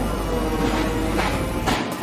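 Background music with steady tones and a few sharp hits.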